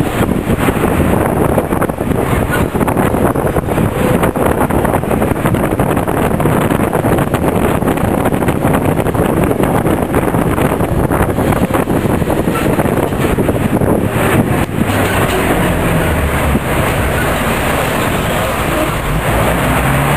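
Steady engine and road noise of a moving vehicle, heard from on board as it drives along a street.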